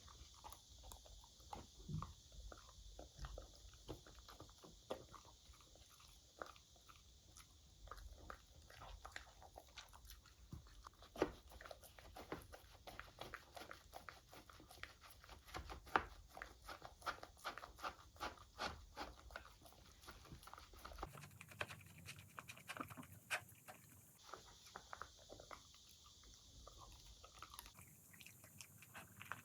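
Beagle eating frozen dog ice cream: faint, irregular biting and chewing with small crunches. A steady, high-pitched chorus of cicadas runs underneath.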